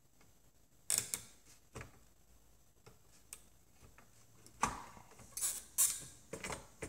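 Small clicks and scrapes of a soldering iron tip and needle-nose pliers against a circuit board as a faulty capacitor is desoldered and worked loose. A few clicks come about a second in, then a busier run of clicks and scrapes over the second half.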